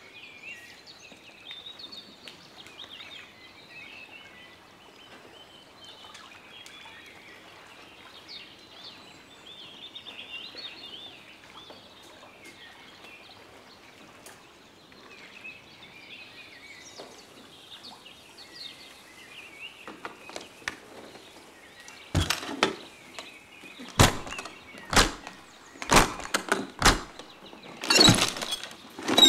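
Birds chirping and singing over quiet outdoor air, then about two-thirds of the way through a series of loud, sharp clacks from an aluminium case and its metal latches being handled.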